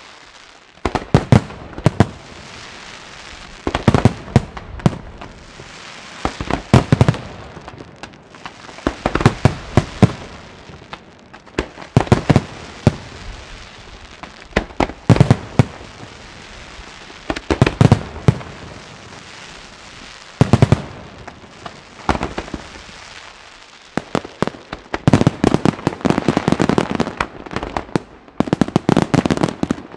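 Fireworks display: clusters of sharp bangs from bursting aerial shells about every two to three seconds, building near the end into a dense, nearly continuous barrage of reports.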